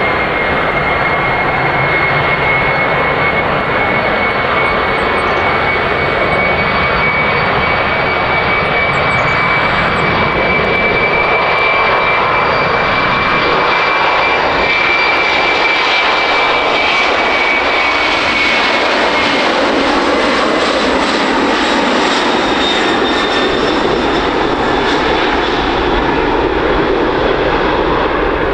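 Boeing 767-300F freighter's twin jet engines at takeoff power through the takeoff roll: a loud, steady roar with a high whine on top that fades out about two-thirds of the way through.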